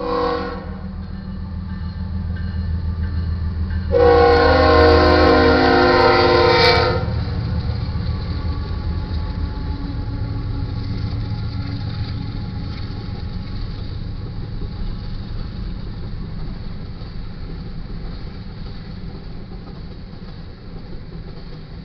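BNSF GE ES44C4 diesel locomotive's air horn: a short blast, then a long, loud blast about four seconds in, the closing short-and-long of the grade-crossing horn signal. The locomotives' engines then rumble past, followed by covered hopper cars rolling by on the rails.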